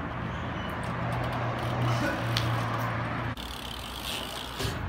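Low engine hum of street traffic with a steady background haze, which stops abruptly a little over three seconds in, with a few light clicks.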